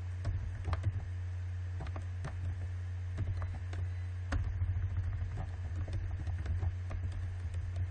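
Computer keyboard keys clicking in an irregular run as text is typed and retyped, over a steady low hum.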